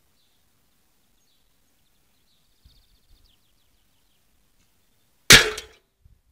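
An arrow hitting a drink can on its stand: one sharp, loud metallic impact about five seconds in, with a brief ringing tail as the can is knocked off. Faint bird chirps come before it.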